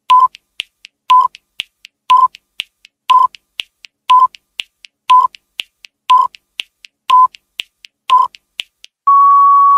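Countdown timer sound effect: a short beep once a second over quick ticking, about four ticks a second, ending in a long steady beep as the count runs out.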